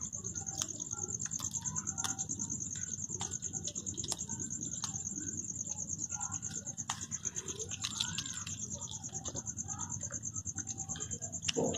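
An orange-and-white cat chewing a piece of raw meat close to the microphone: irregular wet smacking with scattered short clicks and crunches. Underneath is a steady high-pitched insect trill, typical of crickets.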